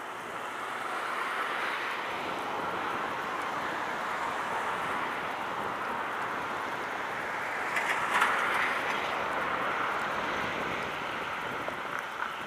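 Wind and small choppy waves on open bay water, a steady rushing hiss, with a louder burst about eight seconds in.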